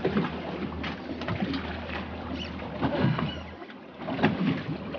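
Boat engine running at a low, steady hum, with scattered knocks on deck. The hum drops away briefly a little past halfway.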